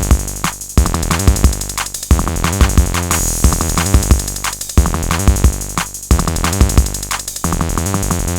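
Electro music: a drum-machine beat under rapid, chopped synthesizer stutters and a heavy bass, in phrases repeating about every second and a half.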